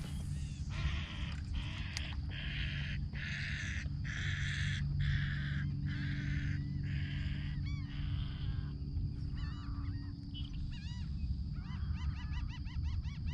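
Birds calling: a run of about ten harsh, honking calls, a little under one a second, giving way near the end to a series of thin, arching chirps, over a steady low hum.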